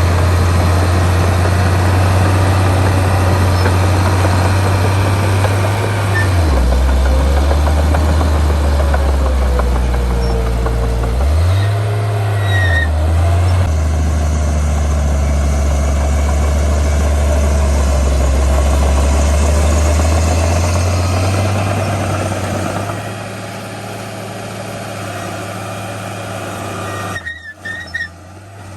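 Heavy diesel engine of earthmoving machinery running under load, its pitch dipping and rising a few times, then settling quieter about two-thirds of the way through. A few short knocks come near the end.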